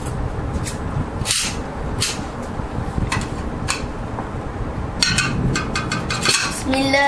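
Scattered light clinks and scrapes of a cake knife and plates on a table as a cake is cut and served, over faint room chatter. A quicker run of clinks comes about five seconds in.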